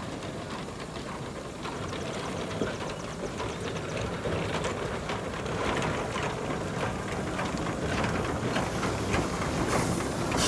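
Shay geared steam locomotive No. 5 working along the track, its rapid, even exhaust chuffs and hiss of steam growing louder as it draws near and passes.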